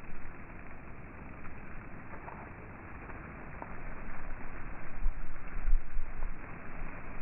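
Mountain wind gusting over the microphone: a dull, steady rushing with low rumbling buffets that swell about five to six seconds in.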